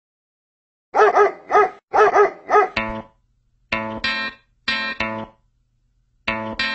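A dog barking about four times in quick succession, starting about a second in. Then distorted electric guitar plays short chord stabs, mostly in pairs, with gaps between them: the intro of a song.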